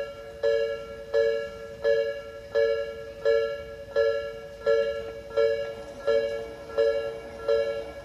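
Japanese railway level-crossing warning bell ringing steadily, a two-note electronic ding repeating about 1.4 times a second, warning that a train is approaching as the crossing barriers come down.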